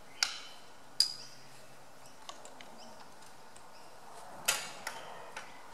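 A few sharp metallic clinks and taps from tools and compression-tester fittings handled at a diesel engine's cylinder head; one clink about a second in rings briefly, and another comes about four and a half seconds in.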